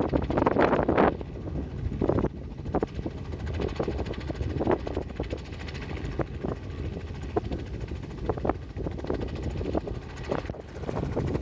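Light two-bladed Robinson helicopter hovering low and settling onto its skids: a steady distant rotor and engine rumble. Wind buffets the microphone loudly during the first second.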